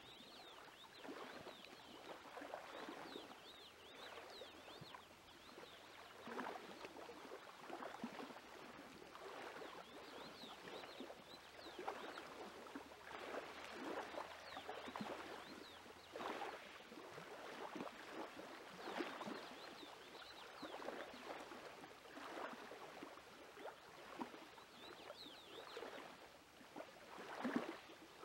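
Bread dough being kneaded by hand in an aluminium pot: quiet, irregular squishing and pressing of the dough against the pot, with one louder thump near the end.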